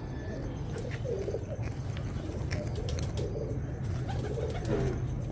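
A female teddy pigeon breathing noisily, with short rising-and-falling pitched sounds recurring at irregular intervals. The sound is a sign of the respiratory problem it is about to be treated for.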